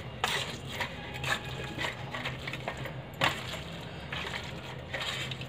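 Boiled carrots being mashed with a steel potato masher in a stainless steel colander: soft squashing strokes with irregular sharp metallic clicks and knocks.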